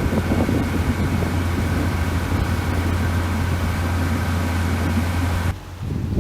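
A boat engine running with a steady low hum and a few steady tones above it. The hum cuts off abruptly near the end, giving way to wind gusting on the microphone.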